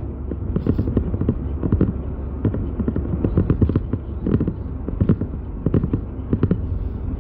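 Steady low rumble inside a car, with many irregular muffled knocks and crackles close to the microphone.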